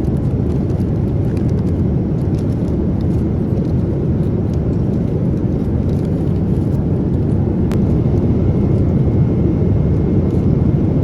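Boeing 787-9 Dreamliner cabin noise in cruise: a steady, even rush of engine and airflow noise, heaviest in the low end. A single brief click about three-quarters of the way through.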